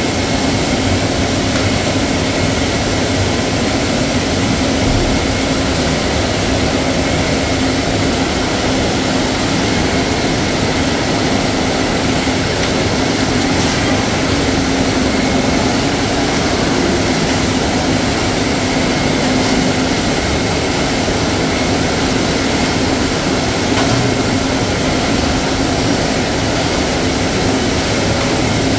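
Food-processing plant machinery running with a loud, steady drone, a low hum under it and a faint high whine.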